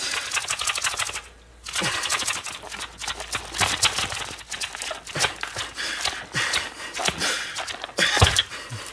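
A small cardboard box shaken and worked upside down by hand to free an item stuck inside: quick rattling, clicking and scraping of card. There is a short pause about a second and a half in and a sharp knock near the end.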